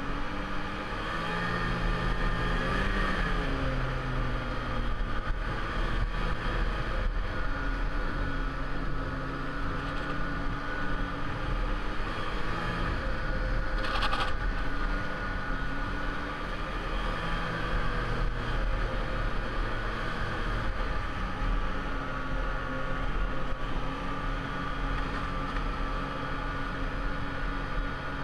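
Snowmobile engine running under way, its pitch rising and falling with the throttle, with a short click about halfway through.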